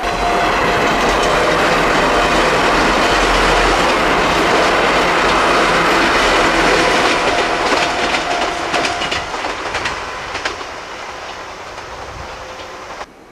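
Chichibu Railway 1000 series (ex-JNR 101 series) six-car electric train passing close by, then drawing away and fading. As it recedes, its wheels click over the track, and the sound cuts off suddenly near the end.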